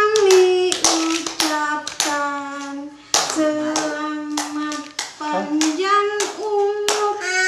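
A birthday song sung over hands clapping a steady beat, about three claps a second.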